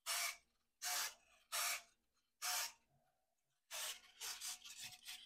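Handling noise: about five short rustling, rubbing bursts as the small foam RC plane is turned over and back in the hands, with a busier run of rustles near the end.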